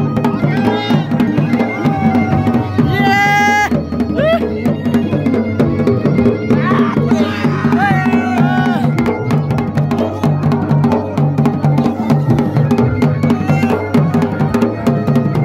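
Dhol and damau drums beating a fast, steady traditional rhythm. A higher melodic line rises over the drumming about three seconds in, and again about seven seconds in.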